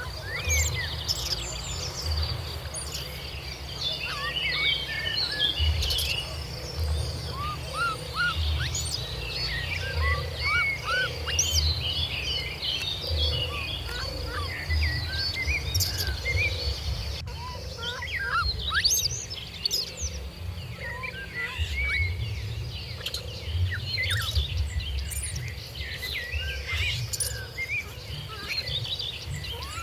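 Birds chirping and calling in many short, overlapping whistles and twitters over a steady high buzz like insects, with a soft low pulse about once a second underneath.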